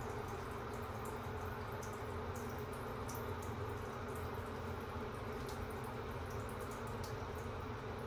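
Hand shower head resting on a small dog's belly, running water steadily over its wet fur, with scattered small drips and splashes.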